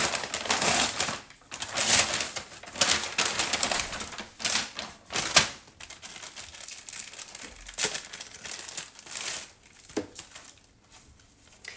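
Plastic packaging crinkling and rustling as a parcel is unpacked by hand, with sharp crackles, loudest in the first half and dying away near the end.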